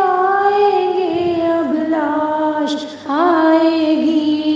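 A voice singing an Urdu nauha, a Shia lament, drawing out long held notes that waver and slide between pitches. About three seconds in it breaks off briefly for breath and starts a new note.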